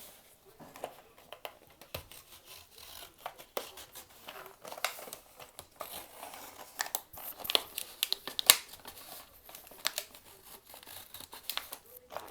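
Toy packaging being opened by hand: irregular crinkling, tearing and sharp clicks, the loudest click about eight and a half seconds in.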